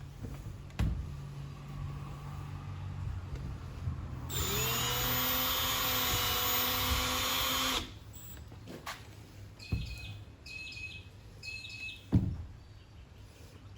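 A cordless drill runs steadily for about three and a half seconds, rising in pitch as it spins up, with a few sharp knocks before and after. Three short high chirps sound near the end.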